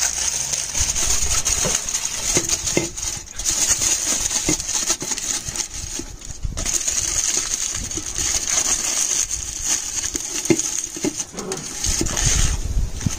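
Aluminium foil crinkling and rustling as it is pressed and crimped around the rim of a slow cooker pot, with scattered light clicks.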